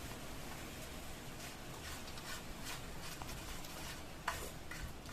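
Soft rubbing and scraping of a hand scooping food from a plate, with several faint clicks and one sharper tap a little after four seconds in.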